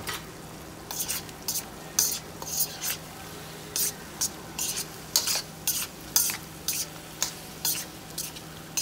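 Chicken pieces being stirred in a hot wok: short, irregular scraping strokes, roughly one or two a second, over a steady sizzle.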